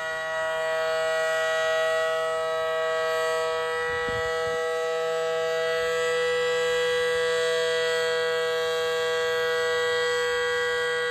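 Federal Signal Model 5BT outdoor warning siren sounding a steady, unwavering two-note chord at full speed: the alert signal of a siren test.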